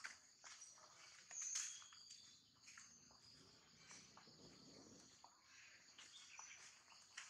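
Faint outdoor ambience: a steady high-pitched insect drone, with a brief high chirp about one and a half seconds in and a few small clicks.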